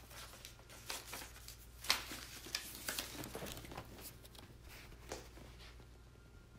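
Clothing rustling and scattered light knocks and clicks as a person gets up from an upholstered armchair and moves away, the sharpest knock about two seconds in, over a steady low hum.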